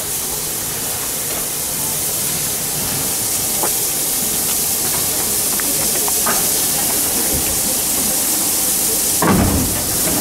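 Steam locomotive 52 8195-1, a German class 52 2-10-0, standing and venting steam with a steady hiss that swells slightly, with a single louder, heavier burst about nine seconds in.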